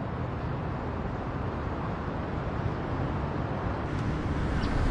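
Outdoor street ambience: a steady low hum of distant road traffic, with a few faint ticks near the end.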